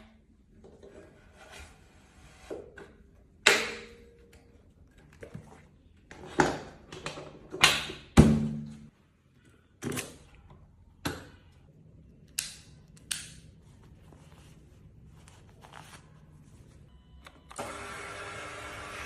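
A series of sharp knocks and thuds, irregular and about a second or two apart, the loudest in the first half. Near the end a steady sound with several held tones starts.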